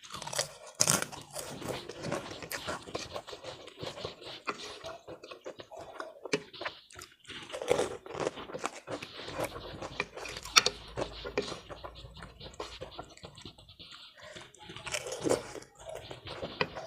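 Close-miked chewing of a person eating ketupat rice cake with chicken opor and potato sambal: a steady run of irregular moist mouth clicks and soft crunches.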